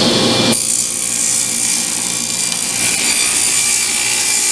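Table saw ripping a sheet of thin plywood for drawer bottoms: a steady cutting hiss with a thin high whine, the sound changing as the blade bites in about half a second in.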